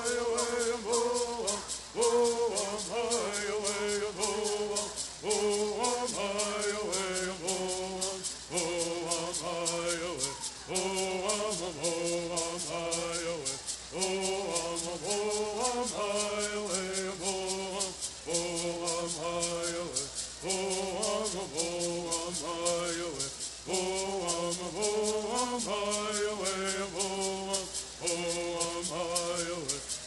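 Bird song sung in unison by a group of men, with hand rattles shaken in a steady quick beat under the singing.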